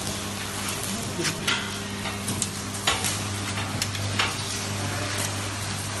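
Loose coir fibre crackling and rustling as it is pushed by hand into a vertical baler's chamber, with a few sharp clicks. A steady low hum runs underneath.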